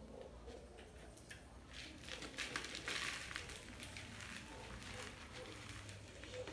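Loose potting substrate poured from a plastic pot into a plastic planter: a faint rustling hiss with small crackles, thickest from about two to four seconds in.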